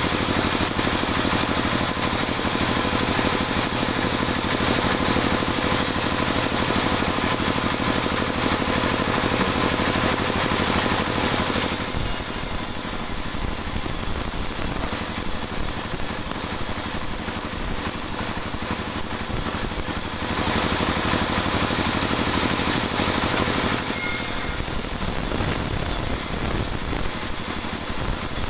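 A band sawmill runs steadily throughout. For the first dozen seconds it sounds dense and harsh as the blade cuts through dry teak. After that it thins out while the wood is reset for the next pass, and it changes again about four seconds before the end.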